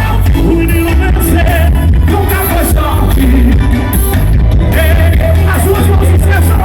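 Live forró band music played loud, with a heavy, steady bass and some singing.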